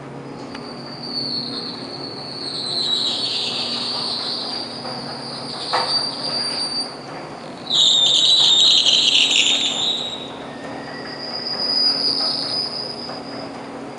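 Old CNIM escalator screeching: high-pitched squeals that swell and fade several times, loudest from about eight to ten seconds in, over a low steady hum. The squeal sounds like a bad fan belt.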